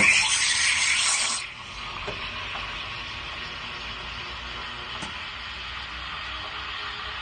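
Espresso machine steam wand steaming milk in a stainless steel pitcher for a latte: a loud hiss for about the first second and a half, then a quieter, steady hiss as the milk is textured.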